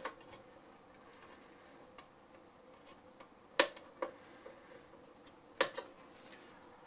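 Wire cutters snipping through old speaker wires in a valve-radio chassis: a few sharp clicks, the two loudest about three and a half and five and a half seconds in.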